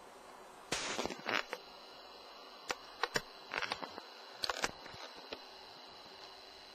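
Handling noise on a camcorder: irregular sharp clicks and knocks, a cluster about a second in and more between about three and five seconds in, over a steady hiss.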